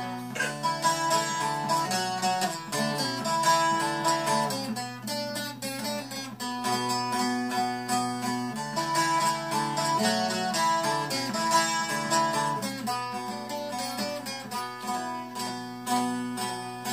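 Bağlama (long-necked Turkish saz) picked with a plectrum, playing a quick instrumental melody of many short notes between sung verses.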